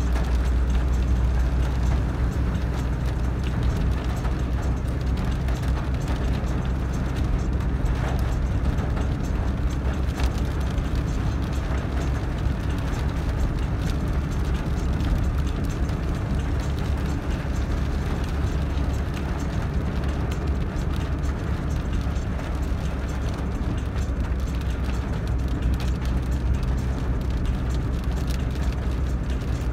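Steady low rumble of a moving road vehicle's engine and tyres on wet road, heard from inside the cabin.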